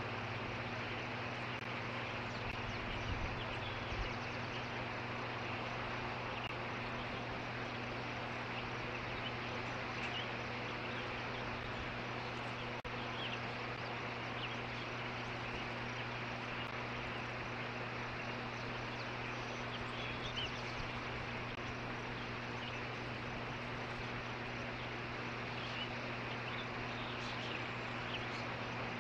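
Steady outdoor background noise picked up by a nest-cam microphone: an even hiss with a constant low hum beneath it, and a few faint, brief high sounds now and then.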